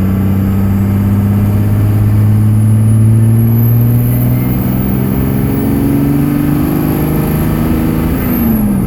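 Cummins 5.9 diesel engine pulling under load, heard from inside the truck, its revs climbing steadily and then falling off quickly near the end. In this rev range the owner hears a faint thump from the rear of the engine, which he suspects is a worn main bearing or the crankshaft hitting the thrust bearing.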